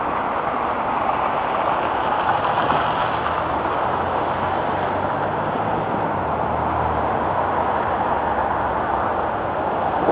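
Steady rushing noise of passing road traffic, with a vehicle engine's low drone rising and fading between about two and seven seconds in.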